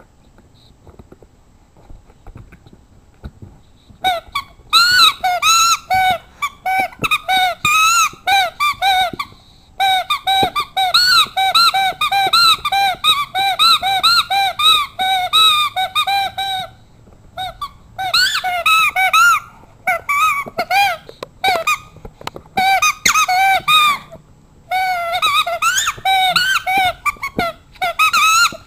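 A dog chewing a rubber squeaky toy, which squeaks over and over at about two squeaks a second. The squeaking starts about four seconds in and runs with a few short pauses.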